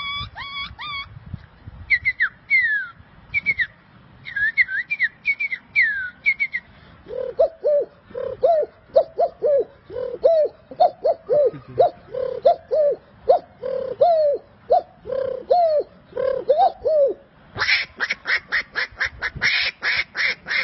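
A person imitating bird calls by mouth. First come a few short falling whistles, then a long, evenly paced run of low cooing calls, and near the end a fast string of harsher squawking calls.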